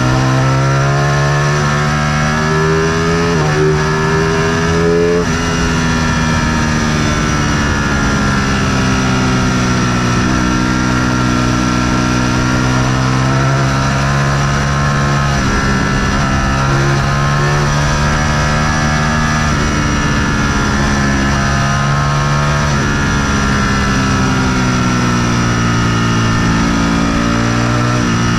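High-performance motorcycle engine running steadily at speed, its pitch slowly rising and falling as the revs change.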